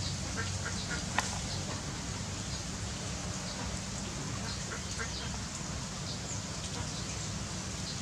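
Chicken chicks peeping in short, scattered chirps beside their mother hen, over a steady low hum, with one sharp click about a second in.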